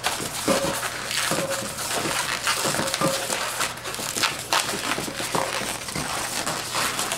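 Latex 260 twisting balloon being twisted off into a string of small bubbles: rubbery rubbing and crinkling with short squeaks as the bubbles are twisted.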